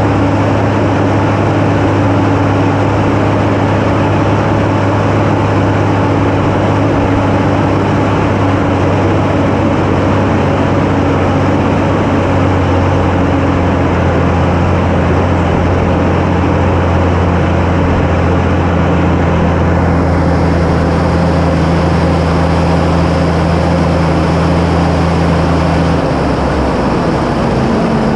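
Tractor engine and carrot-harvesting machinery running steadily, a loud continuous drone with a low engine hum under a haze of mechanical noise. The engine note shifts slightly a couple of seconds before the end.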